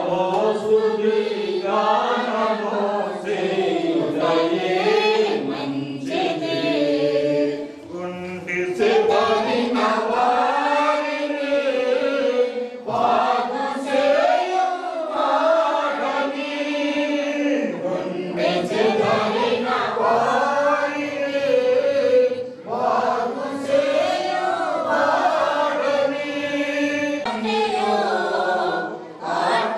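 A group of voices singing a Christian hymn together, with no clear instrumental accompaniment.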